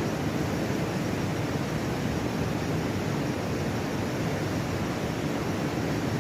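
Fast river water rushing over rapids, a steady, dense roar of water with most of its weight low down and no breaks.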